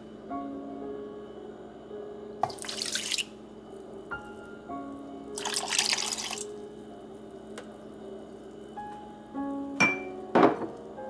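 Milk pouring from a mug into a mixing bowl of sugar, splashing in two pours of about a second each, with a couple of sharp knocks near the end. Background music plays throughout.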